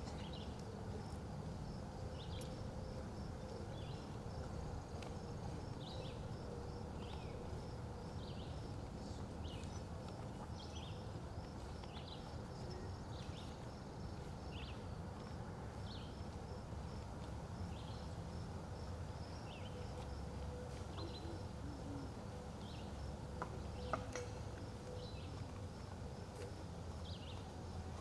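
Outdoor ambience: a steady low rumble with short high chirps repeating about once a second, and a single sharp click near the end.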